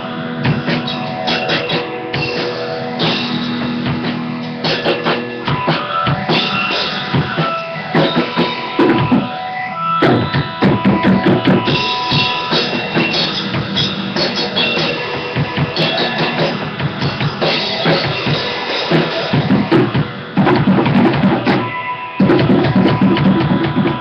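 Acoustic drum kit played in a busy pattern of bass drum, drums and cymbal hits, with two short breaks near the end.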